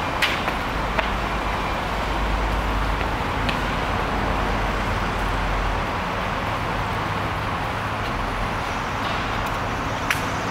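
Steady vehicle and traffic noise with a low engine rumble, heaviest in the first half, and a few light clicks.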